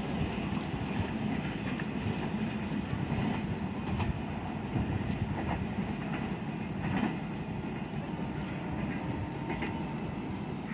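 Train running on the track: a steady rumble with a few scattered clacks of wheels over rail joints.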